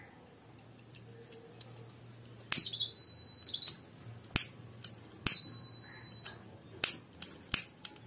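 Small piezo buzzer on a home-made fire-detector circuit beeping a steady high-pitched tone, twice for about a second each, with a third beep starting at the very end. It sounds when the circuit's photodiode picks up the flame of a lighter. Sharp clicks fall between the beeps.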